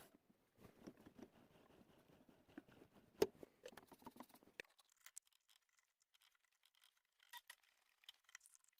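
Near silence, with faint scattered clicks and scratches and one sharper click about three seconds in.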